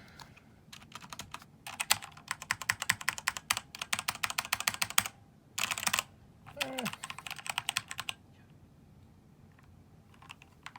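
Fast typing on a HyperX Alloy FPS RGB mechanical keyboard with Kailh Silver Speed key switches: a run of rapid key clatter from about two seconds in, a short hissy burst, then a second shorter run before it stops.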